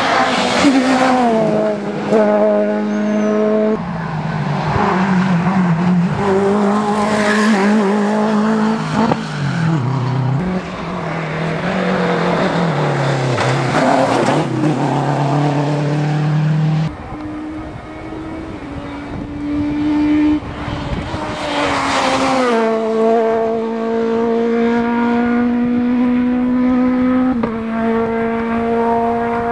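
Rally cars' engines revving hard as one car after another comes through on a tarmac stage. The engine note climbs and then drops in steps with each gear change. There is a quieter, more distant stretch a little past the middle.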